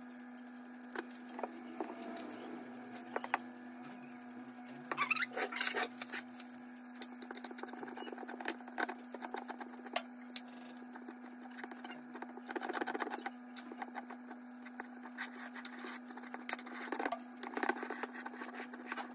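A utensil tapping and scraping on a plate as ripe bananas are mashed, in irregular clusters of short clicks. A steady low hum runs underneath.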